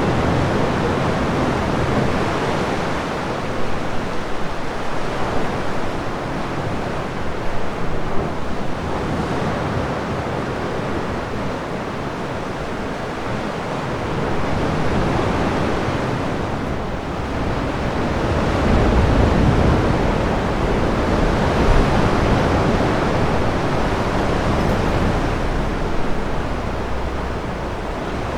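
Sea waves washing into a sea cave, a continuous surf wash that swells and ebbs slowly, with a deeper, louder surge about two-thirds of the way through.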